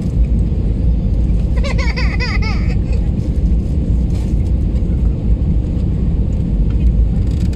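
Steady low rumble of an airliner's engines and airflow heard inside the passenger cabin on approach. A short high-pitched voice is heard about two seconds in.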